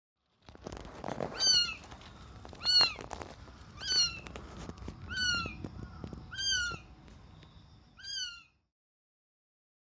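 Young kitten meowing: six short, high-pitched meows spaced a little over a second apart, over faint rustling noise.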